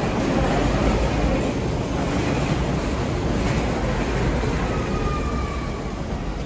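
Steady, low rumbling background noise of an airport jet bridge and terminal corridor as a crowd of passengers walks through, with no distinct footsteps standing out.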